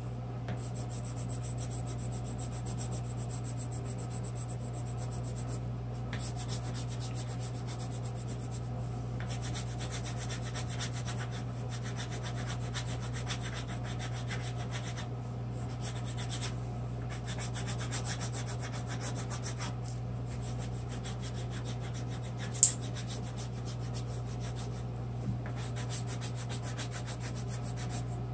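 Colored pencil shading rapidly on paper over a clipboard: fast back-and-forth scratchy strokes with brief pauses every few seconds. A steady low hum runs underneath, and there is a single sharp click late on.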